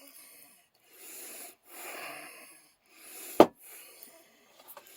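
A man's heavy breathing, short noisy breaths about once a second, with one sharp knock about three and a half seconds in and a faint click near the end.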